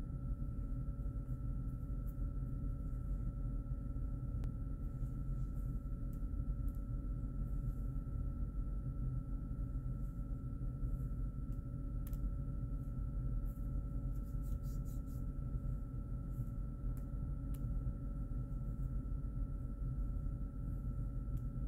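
Steady room hum: a low drone with two thin, even tones above it, and a few faint clicks.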